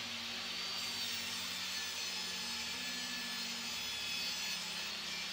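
Table saw running steadily while cutting wooden pieces to size.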